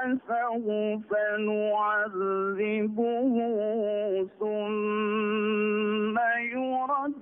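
A man's voice reciting the Qur'an in a melodic chant. The phrases glide and are ornamented, with short breaths between them and one long held note in the second half.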